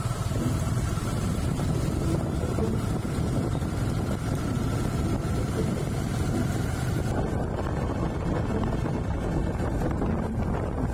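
Steady low rumble of a moving vehicle with wind buffeting the microphone.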